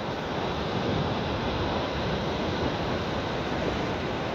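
Atlantic surf breaking on a sandy beach, a steady rushing noise with no single crash standing out.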